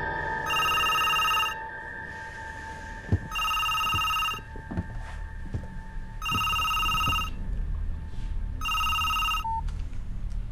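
Mobile phone ringtone ringing four times, each ring about a second long with pauses between, the incoming call left unanswered; a sharp click about three seconds in and a few soft knocks sound between the rings.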